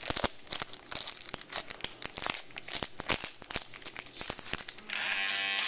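Trading-card pack wrapper crinkling and tearing, with rapid irregular crackles as the pack is opened and handled. Guitar music comes in near the end.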